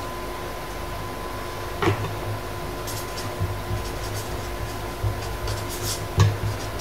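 A pen scratching across paper on a desk in short strokes as a word is written by hand, with a knock about two seconds in and another near the end, over a faint steady hum.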